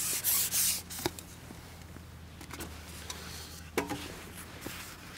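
Quick hissy rubbing strokes, about four a second, that stop about a second in: typical of hard feed pellets being scooped and rattled in a hand from a bait tub for loose feeding. After that, a few sharp clicks of tackle being handled, the loudest near four seconds.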